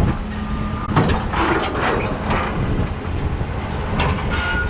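Truck hauling a trailer loaded with a chained-down excavator, running with a steady low rumble and several sharp metallic clanks and rattles.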